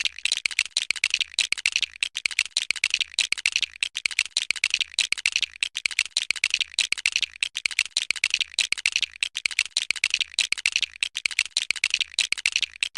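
Rapid, continuous clicking and clattering, a dense run of light, sharp clicks with only a few brief gaps.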